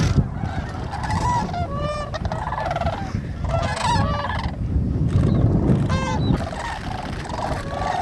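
Flock of sandhill cranes calling: many overlapping rolling, rattling bugle calls, with several loud trilled calls about two, four and six seconds in, over a steady low rumble.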